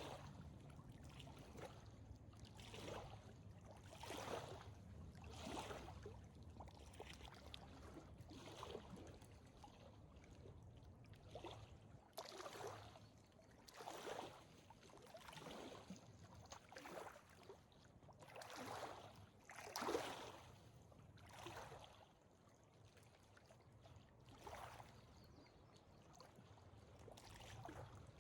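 Faint footsteps of a hiker walking a dirt trail, a soft scuffing crunch about every second and a half at a steady pace.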